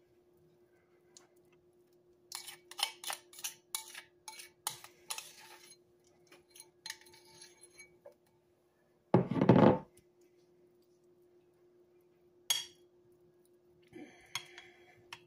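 Metal spoon clinking and scraping against a mixing bowl and a ceramic baking dish while spreading a thick sour cream and Parmesan topping, with a quick run of about ten clinks early and scattered scrapes later. Partway through comes one dull, louder thump. A faint steady hum runs underneath.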